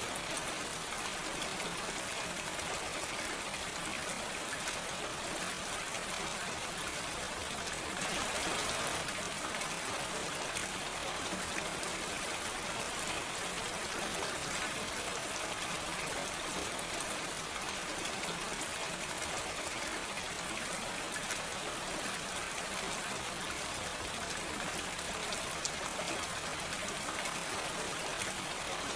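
Steady gentle rain, with no thunder: an even hiss of falling rain with fine drop ticks, swelling slightly about eight seconds in.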